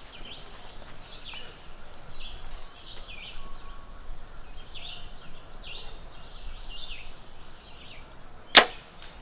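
A single compound bow shot about eight and a half seconds in, one sharp crack as the string is released. Behind it, repeated high chirps of birds or insects.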